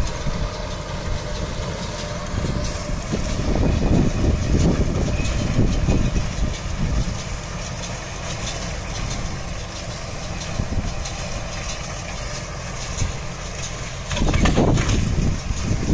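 Tractor pulling a small square baler through straw windrows: a steady engine and baler drone that swells louder a few seconds in and again near the end.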